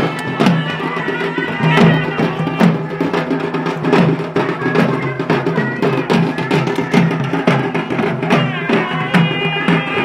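Traditional folk music: a drum beaten in a steady rhythm of about two strokes a second over a sustained droning wind instrument, with a reed melody rising in near the end.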